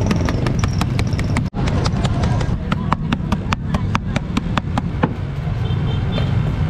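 A flat board fanned quickly over a charcoal grill, giving a rapid flapping tick about five times a second that stops about five seconds in, over a steady rumble of street traffic.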